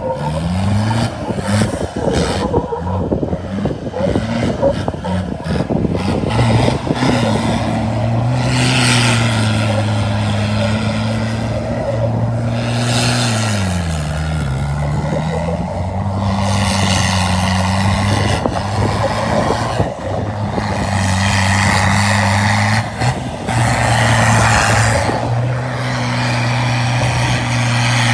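Modified 4x4 off-roader's engine running hard on a dry dirt trail, its pitch holding steady, dropping sharply about halfway through and climbing back up. Over it, a rushing noise from tyres and gravel swells and fades every few seconds.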